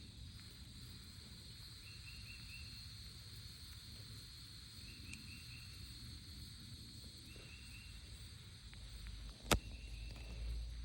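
Steady high-pitched insect chorus, crickets or similar, with a few short chirps now and then. A single sharp click comes about nine and a half seconds in, and a low rumble starts just before it.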